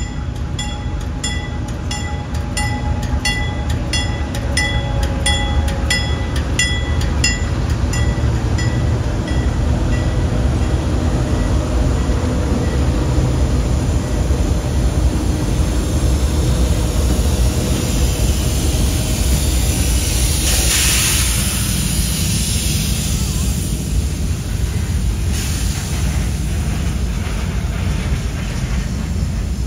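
CSX diesel freight train passing close by: a deep, steady rumble as the locomotives and then the freight cars roll past on the rails. At first a bell rings about twice a second, fading out about eight seconds in. A burst of hiss rises about two-thirds of the way through.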